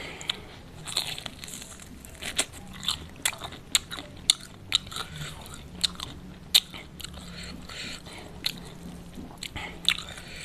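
Crunching and chewing of crispy fried chicken close to the microphone, with sharp, irregular crunches of the fried coating about once or twice a second.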